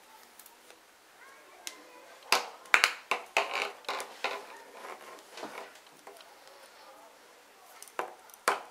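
Metal circular knitting needles clicking and tapping against each other as stitches are worked: a cluster of sharp clicks in the middle and two more near the end.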